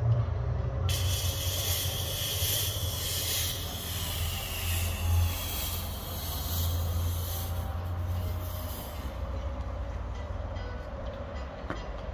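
Fog machine hissing as it blows out a burst of fog, starting about a second in and cutting off near nine seconds, over a steady low hum.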